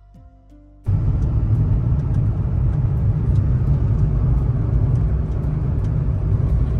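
Steady low rumble of road and engine noise inside a moving car's cabin. It starts suddenly about a second in, after a brief quiet moment.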